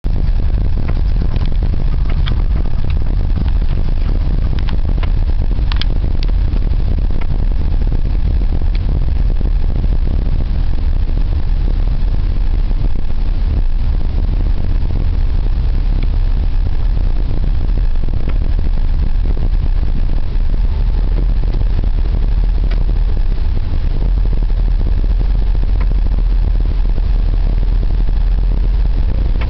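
Daewoo Lanos with a steady low rumble, broken by sharp knocks from the suspension, several in the first nine seconds and a few later. The knocking is the suspension fault being shown.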